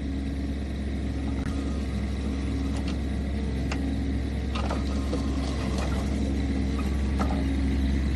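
Kubota diesel engine of a Bobcat 323 mini excavator idling steadily, with scattered light clicks and knocks over it from about three seconds in.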